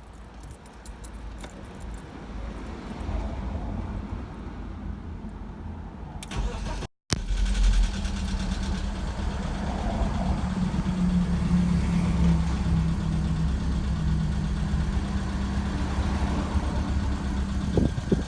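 BMW E46 engine running with the strange, annoying noise its owner says it makes only while cold and that fades once it warms up after about ten minutes. After a brief dropout about seven seconds in, it is louder, with a steady hum.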